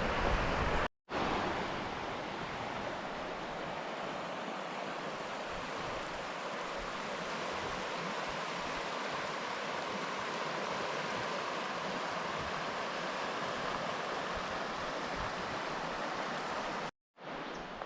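Steady rushing of a river flowing over rocks, an even continuous noise, broken by two brief silent gaps, about a second in and near the end.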